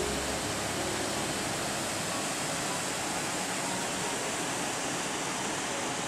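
Waterfall: water rushing steadily down rock channels into a pool.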